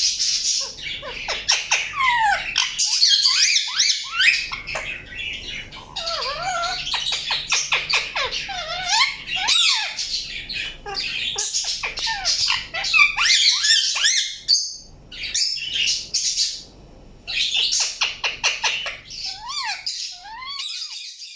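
Indian ringneck parakeet chirping and squawking in rapid, high calls with sliding notes, with a short lull about three quarters of the way through.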